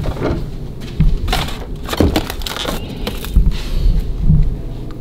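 Kitchen items being handled at an open fridge: irregular knocks, clicks and crinkling of containers and packaging, over a low rumble.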